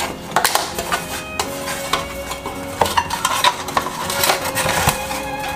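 A plastic spatula scraping and spreading margarine around the inside of an aluminium baking pan to grease it, with irregular scrapes and light knocks of the pan as it is handled.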